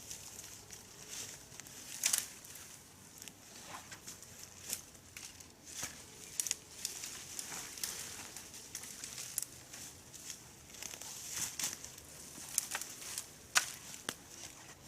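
Dry leaves and twigs rustling and crackling, with irregular sharp snaps scattered through a steady crinkling hiss.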